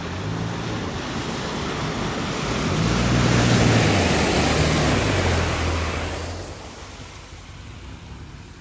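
Nissan Frontier pickup's V6 engine pulling through a deep mud hole, its revs rising and falling, while the tyres churn and throw muddy water. The splashing builds to its loudest about halfway through as the truck passes close, then fades away.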